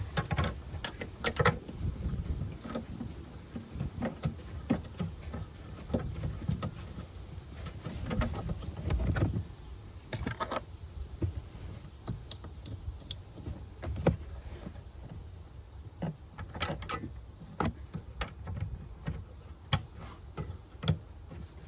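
Scattered clicks, knocks and rattles of hand work on a car taillight assembly being fitted, with its mounting left loose for adjustment.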